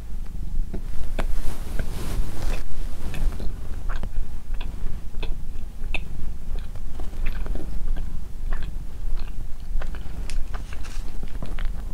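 A person chewing and biting a soft bun, with many irregular wet mouth clicks and crackles, over a steady low purr from a cat lying on the person's lap.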